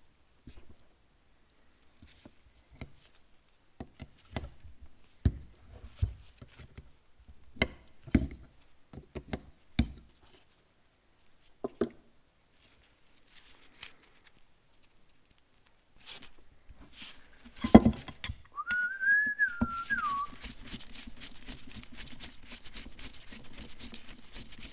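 Sharp clicks and knocks of small metal carburetor parts being handled during a teardown, then a loud knock. A person whistles one short note that rises and then falls. After that comes a steady scratchy noise made of fast strokes.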